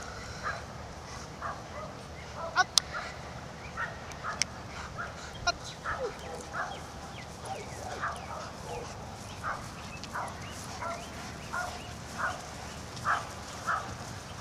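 Young German Shepherd barking and yipping in short, repeated calls, roughly one every half second to second, with two sharp snaps a little over two and a half seconds in.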